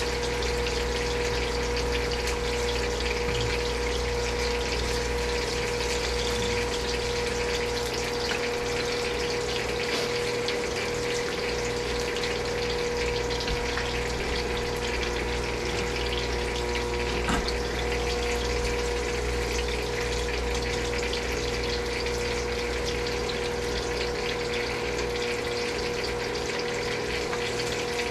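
Hot oil sizzling and crackling steadily as fish and breadfruit deep-fry, with a constant hum underneath.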